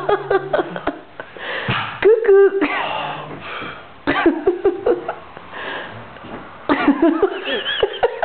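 Loud, excited voices in a small room: short high-pitched calls and yelps, with sharp knocks between them.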